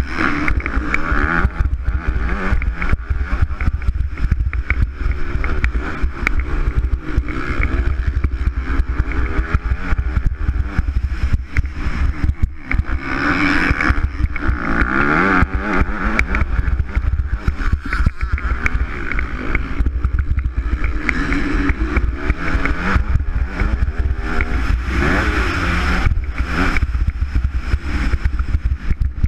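MX2 motocross bike engine being ridden hard on a dirt track, revving up and falling off again and again as the rider throttles through corners and straights. A constant deep rumble runs underneath.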